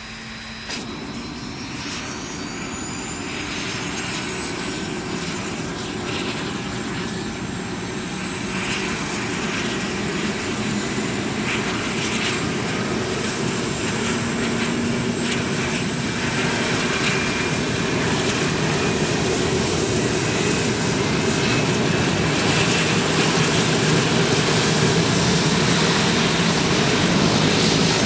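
Pilatus PC-12's PT6A turboprop engine starting up: a high turbine whine climbs steadily in pitch as the engine spools up and the propeller begins to turn. The engine grows louder throughout, with a sudden step up in level about a second in.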